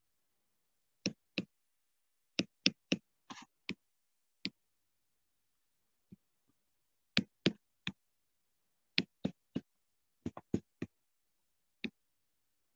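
Stylus clicks and taps on a drawing tablet as circuit lines are drawn: about twenty short sharp clicks, mostly in quick runs of two to four, with silence between the runs.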